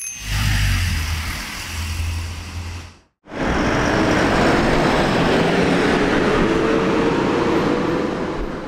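Urban traffic noise from passing vehicles: a heavy low rumble for about three seconds, then a sudden cut, then a steady traffic hum with a faint, slowly rising whine, fading near the end.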